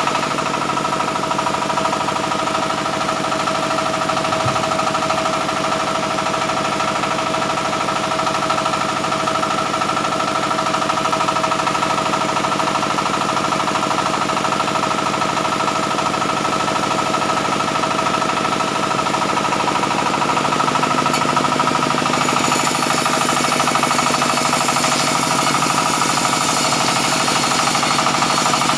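Sawmill band saw running steadily with a continuous rattling machine sound and a steady whine; the hiss grows brighter about three quarters of the way through.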